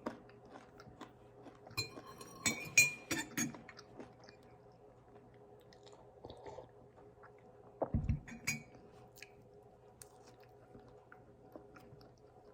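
Close-miked chewing and crunching of food in the mouth: a flurry of crunches about two seconds in and another about eight seconds in, with quieter chewing between.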